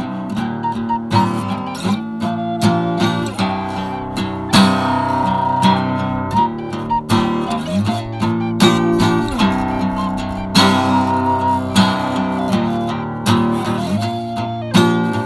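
Background music: acoustic guitar, plucked and strummed, with sustained notes and occasional sliding notes.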